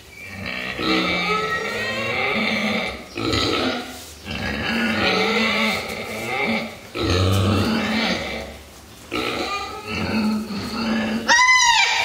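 Pig grunting: a run of long, rough grunts, each lasting one to two seconds, with short breaks between them. A short call that rises and falls comes near the end.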